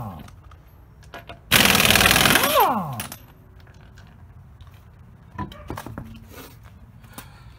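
Pneumatic impact wrench spinning a lug nut off: a loud hammering burst of about a second and a half, starting about a second and a half in and ending in a falling whine as the tool spins down. Light clinks and clatter follow as the nut and tool are handled.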